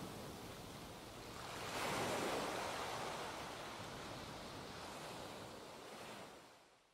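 A soft, even rushing noise with no tune in it, swelling about two seconds in and fading out near the end.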